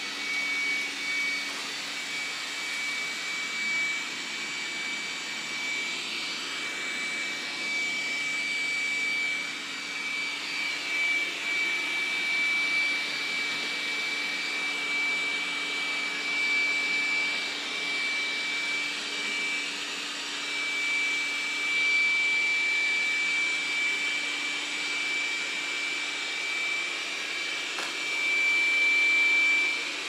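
Dreametech D10 Plus robot vacuum running as it cleans a hard floor: a steady rushing suction noise with a high whine on top, swelling a little louder now and then and loudest near the end.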